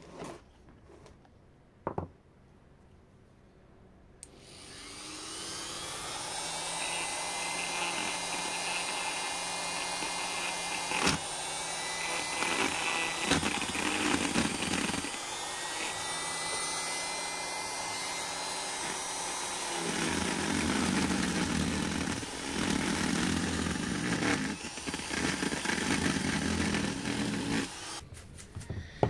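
Lidl straight grinder with a carving bit spinning up about four seconds in with a rising whine, then running steadily while it cuts into olive wood. The grinding turns heavier and uneven in the second half as the bit bites into the wood, and the tool stops near the end.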